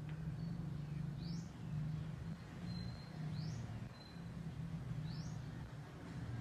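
Bird calls: a short rising chirp about every two seconds, with a few brief thin whistles between them, over a steady low hum.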